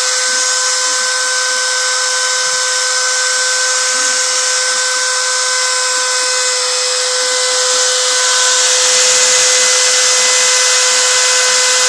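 CNC router spindle running with a steady high whine over hiss while it engraves. It gets a little louder and brighter about eight seconds in.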